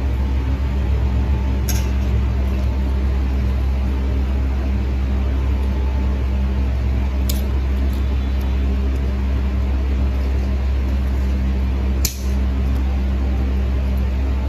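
A steady low mechanical hum from the pedicure equipment runs throughout. Three sharp clicks, spread out over the stretch, come as steel nail nippers cut into a thick, overgrown toenail.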